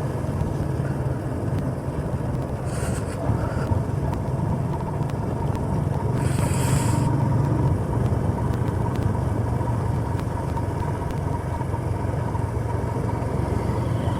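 Motorcycle engine running steadily under way, with road and wind noise; a brief hiss about three seconds in and another, louder one about six to seven seconds in.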